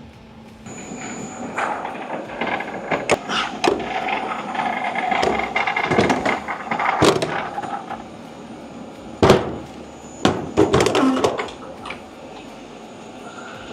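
A run of sharp knocks and bangs over a steady mechanical hum, the loudest bangs about nine and eleven seconds in.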